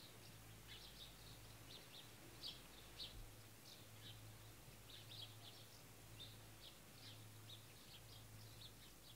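Faint birds chirping: many short high calls scattered throughout, over a low steady hum.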